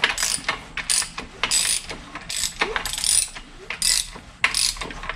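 Ratchet wrench clicking in repeated strokes as the Suzuki GS500F's twin-cylinder engine is turned over by hand, bringing the camshafts round for the valve-shim check.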